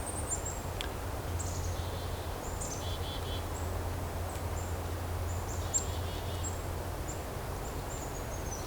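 Small woodland songbirds in a mixed winter flock giving many short, very high, thin call notes, with a couple of brief lower call clusters about three and six seconds in. A low steady rumble runs beneath.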